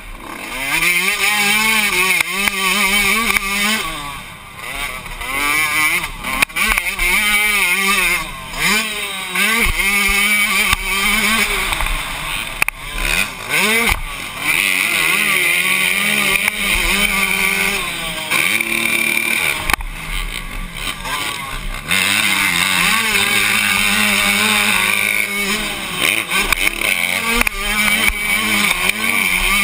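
Yamaha YZ125 two-stroke 125cc motocross engine, heard from the rider's helmet, revving hard with its pitch climbing and falling over and over through the gears. There are a few brief lulls where the revs drop away.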